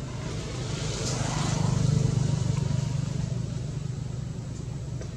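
A motor vehicle engine running with a steady low hum, swelling as it passes about two seconds in and then fading.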